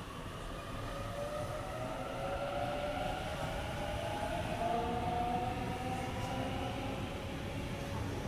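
Waratah electric train pulling away from the platform, its traction motors giving a slowly rising whine over a low rumble as it gathers speed.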